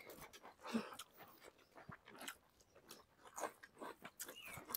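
Faint, scattered eating sounds: soft chewing and short, quiet clicks of hands mixing rice and chicken curry on plates.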